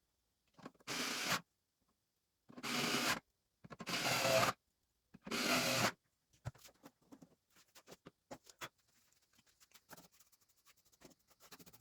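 Four short scrubbing strokes, each lasting under a second, as keyboard parts are cleaned, followed by scattered light clicks and taps.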